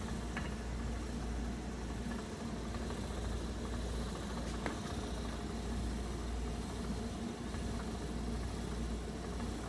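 Small electric spinning wheel running at a steady speed, its motor giving a low, even hum as the flyer and bobbin turn. There is one faint click just before the middle.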